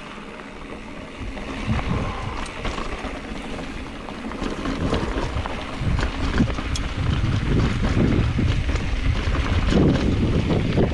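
Wind buffeting the microphone of a mountain bike descending a dirt trail, mixed with the knobby tyres crunching over loose dirt and small clicks and rattles from the bike. The rumble gets steadily louder over the second half.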